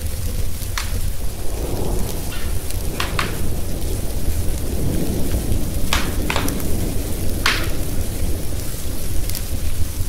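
A thunderstorm with steady rain and low rolling thunder that swells a couple of times, mixed with a wood fire crackling in a fireplace. About half a dozen sharp pops from the burning logs come at irregular moments.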